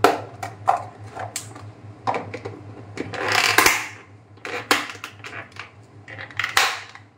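Plastic lunch box being packed and snapped shut: sharp clicks and knocks of the lid and inner containers, with a longer scraping clatter about three seconds in. A low steady hum runs underneath.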